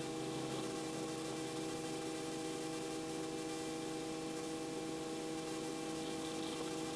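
Robinson R44 helicopter running, heard as a steady hum of several constant tones over a hiss through the cockpit intercom, with no change in pitch or level.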